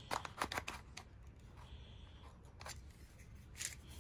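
Faint clicks and scrapes of a utility knife slitting the edge of a small cardboard box: a cluster of short cuts in the first second, then a few single ones later.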